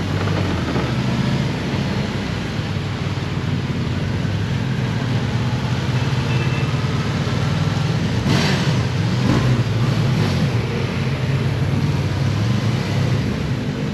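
Motorcycle engine running steadily while riding through city traffic, its pitch shifting a little with the throttle, with a brief rush of noise about eight seconds in.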